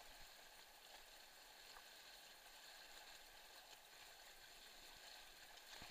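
Faint, steady rushing of a small creek running high and fast, with no distinct splashes or strokes standing out.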